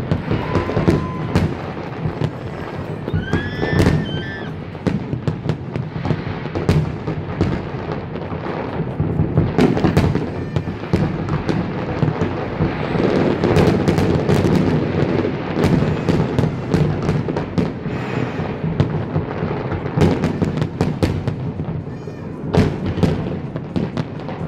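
Aerial fireworks bursting in a dense, continuous barrage: many sharp bangs and crackles each second over a steady rumble.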